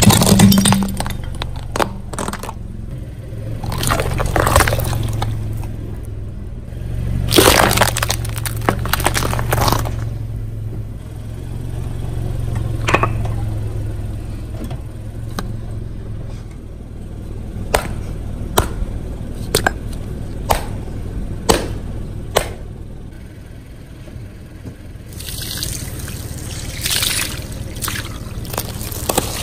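A car tyre rolling over and crushing one object after another: a series of sharp cracking snaps as toys and vegetables give way, then plastic bags of water beads bursting under it, with liquid spilling and splashing near the end. A low steady hum runs under the first half.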